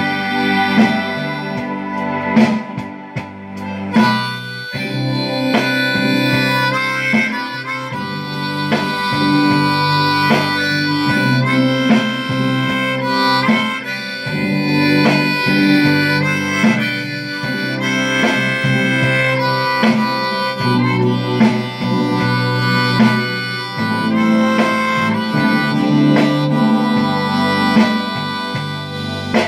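Harmonica played close into a microphone: a melody of long held notes that change every second or two.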